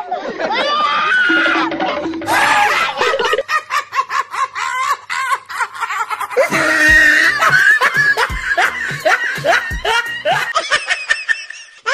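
Music mixed with laughing.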